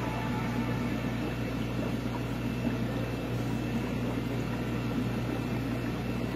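Steady hum of aquarium pumps and filters, a constant low electrical drone with an even wash of running-water and air noise.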